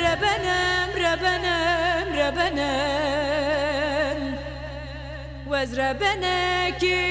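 A woman singing a Kurdish folk song, holding long notes with wide vibrato and sliding, ornamented runs over a steady low drone. The voice drops softer for a moment a little past halfway, then comes back full.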